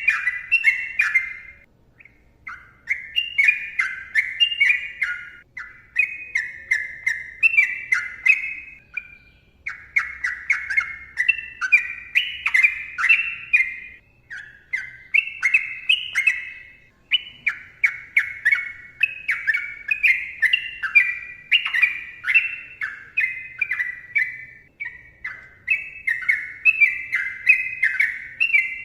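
Sooty-headed bulbul (trucukan) singing long, dense runs of rapid warbling phrases, with only short pauses between runs.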